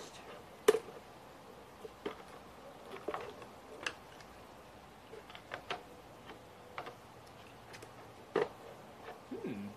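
Scattered light clicks and knocks of lawn mower parts being handled and fitted during hand assembly, the sharpest a single knock about a second in.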